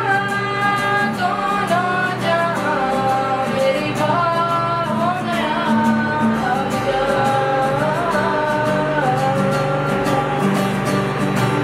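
A boy singing a slow, gliding melody to his own acoustic guitar accompaniment.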